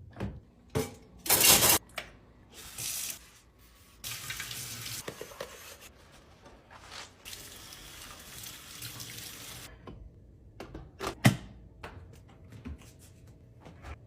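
Water running from a tap in several short spells, with sharp knocks and clicks in between, the loudest about eleven seconds in.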